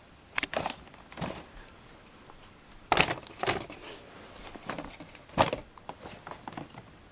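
A brown paper bag and a rolled-up crisp packet rustling and crinkling in short, separate spells as a kitten paws and pushes at them, the loudest about three seconds in and again about five and a half seconds in.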